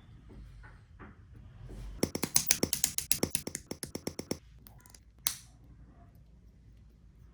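Plastic model kit parts of a Bandai SD Aile Strike Gundam being handled and fitted: a quick run of sharp plastic clicks and taps starting about two seconds in and lasting a couple of seconds, then a single click near the end.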